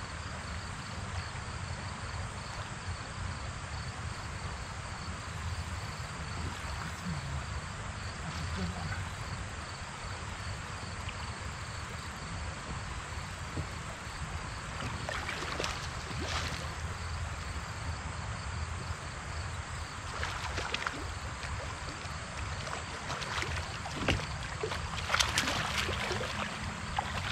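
Steady outdoor river ambience: a rush of moving water and wind with a low rumble beneath it. Several short, sharp sounds break through in the last dozen seconds.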